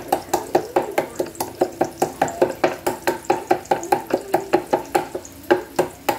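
Wooden pestle pounding black peppercorns in a wooden mortar: quick, even knocks, about four or five a second, each ringing briefly.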